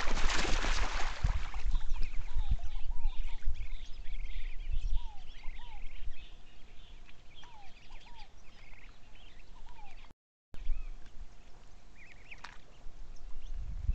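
Ducks and their ducklings on shallow water: a loud splash of water right at the start, then many short calls in irregular runs.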